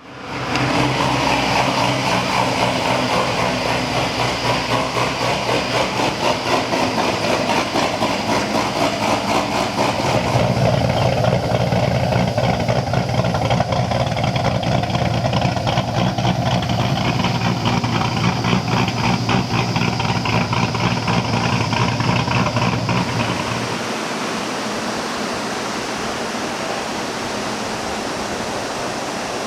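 A car's V8 engine running, with rapid even firing pulses; it grows heavier and louder about ten seconds in, then drops to a steadier, quieter run near the end.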